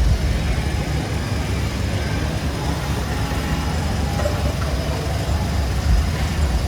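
Steady low rumbling background noise without distinct strikes or voices.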